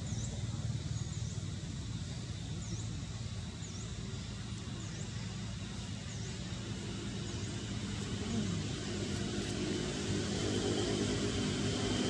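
Outdoor ambience: a steady low rumble, with a short high chirp repeating about once a second through the first half. A low hum of several steady tones comes in and grows a little louder in the last few seconds.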